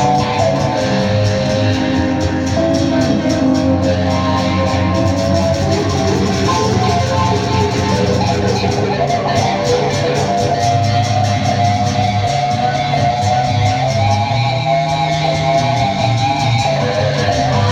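Live acoustic band playing, led by plucked guitar over a steady bass line.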